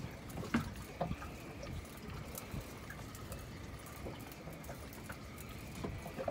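Sea water lapping and splashing against the hull of a small boat, with a few light knocks.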